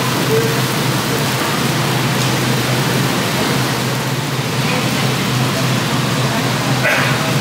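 Meat sizzling on a hot tabletop barbecue grill plate: a steady hiss with a low steady hum underneath.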